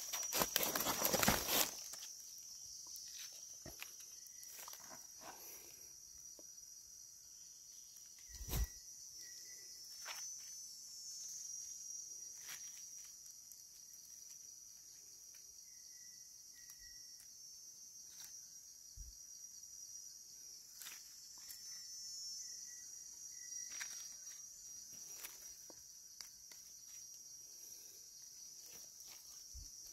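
A steady, high-pitched drone of insects runs throughout, with scattered crackles and rustles of dry leaf litter being handled while mushrooms are picked, louder in the first two seconds and once about eight seconds in. A few faint short chirps sound now and then.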